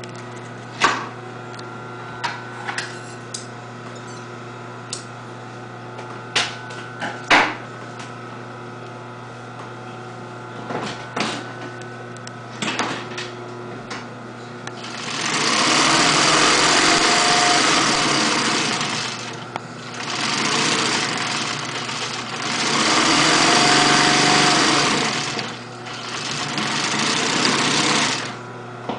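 Mitsubishi industrial double-needle lockstitch sewing machine: a steady motor hum with scattered clicks and knocks for about half the time, then sewing in four runs of a few seconds each, with short stops between them.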